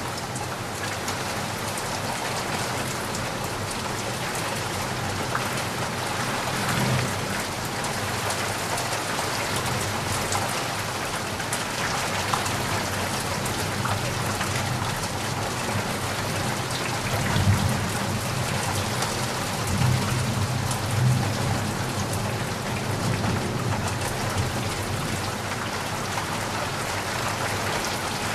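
Heavy rain falling steadily, with low rumbles of distant thunder now and then, the strongest about two-thirds of the way through.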